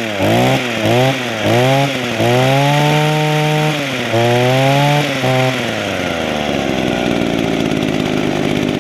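Echo hedge trimmer's two-stroke engine being throttled up and down: four quick revs, then two longer holds at high speed, then a drop back to a steady idle about five and a half seconds in. The engine runs on a freshly rebuilt Walbro carburetor; the owner finds it runs okay but thinks it is a little worn out.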